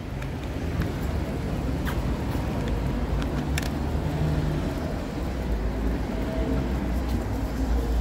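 Road traffic on a busy street: a steady low rumble that grows louder over the last few seconds as a vehicle comes close, with a few faint clicks.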